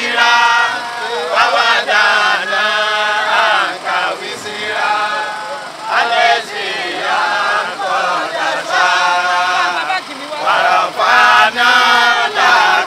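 Men's voices singing a chant, phrases of long held notes with short breaks between them.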